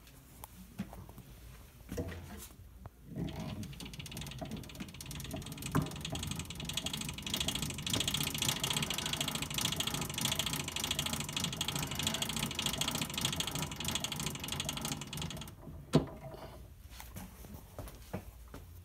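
Edison Diamond Disc phonograph's spring motor being wound with its side crank: a fast, even ratcheting clatter for about twelve seconds, then a single sharp click near the end.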